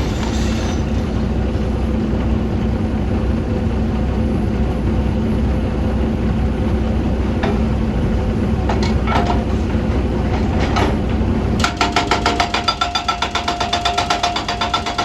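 Excavator's diesel engine running steadily, with a few sharp metallic clanks. About three-quarters of the way through, a fast, even metallic hammering starts up, many strokes a second with a ringing tone, and runs on.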